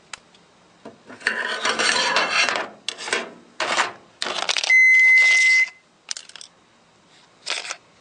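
Crunching and scraping on gravel in several short bursts, then a single electronic beep about a second long near the middle, the loudest sound, followed by a few faint scrapes.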